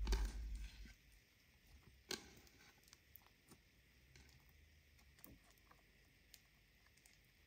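Clear slime mixed with green eye shadow powder being folded, pressed flat on a wooden table and squeezed by hand. A heavier thud opens it as the slime is pressed down, a sharp snap comes about two seconds in, and small clicks and pops follow as it is worked into a ball.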